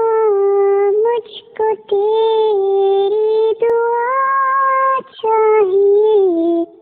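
A high solo voice singing the slow opening of a Hindi ghazal in long, drawn-out notes, with short breaks between phrases and a brief rise in pitch midway.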